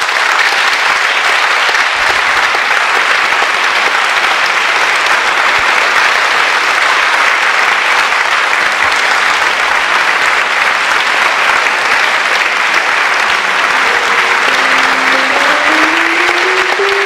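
Audience applauding steadily and loudly. Near the end, piano notes begin to sound under the applause.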